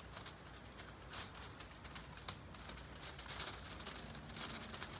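Faint crinkling and scattered small ticks of aluminium foil as a trout lying on it is handled and buttered with a knife.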